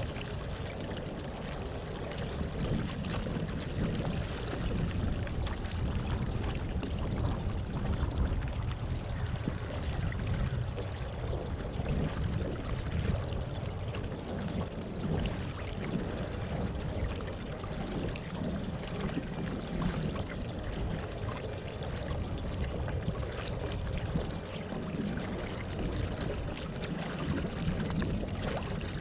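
Water splashing and gurgling steadily as a pedal-powered waterbike moves through the water, with a low rumble underneath.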